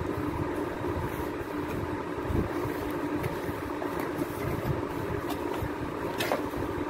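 Cardboard shipping box being opened by hand: a few light scrapes and taps as its flaps are pulled back. They sit over a steady background hum that is louder than the handling.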